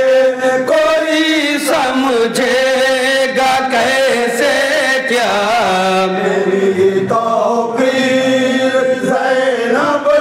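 A group of men chanting a manqabat, an Urdu devotional poem, in chorus into a microphone, voices held on long notes that waver in pitch.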